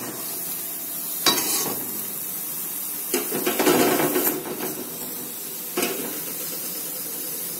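Spatula scraping and knocking in a frying pan as the cooked mashed-potato filling is scooped out onto a plate: a few separate knocks and a longer scrape in the middle, over a steady hiss.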